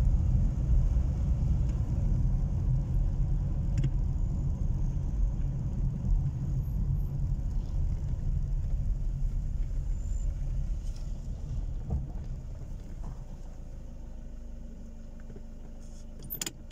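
Car driving slowly, heard from inside the cabin: a low engine and tyre rumble that fades as the car slows to a stop, leaving a quieter steady hum. A sharp click comes just before the end.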